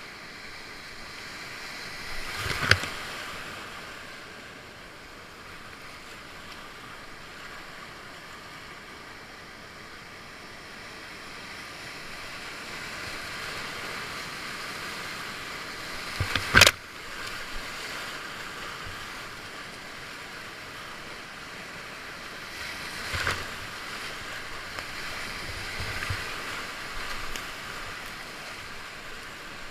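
Whitewater river rapids rushing steadily around a kayak, with three short, sharp splashes from paddle strokes or waves hitting the boat; the loudest comes a little past the middle.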